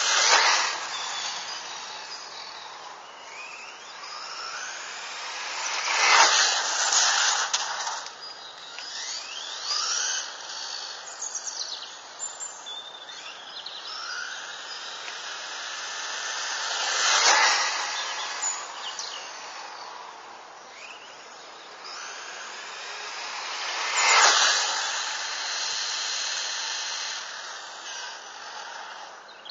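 Ultima DB electric RC buggy with an EZrun 8.5T brushless motor driving on asphalt, passing close by four times. Each pass swells and fades as a rush of tyre noise with a high motor whine that glides up and down in pitch.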